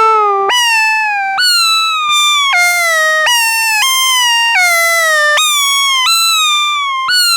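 Studio Electronics SE-1 analog synthesizer playing a run of meow-like notes imitating a cat: about eight gliding tones, one roughly every second, each jumping up sharply and then sliding down in pitch, with no gaps between them.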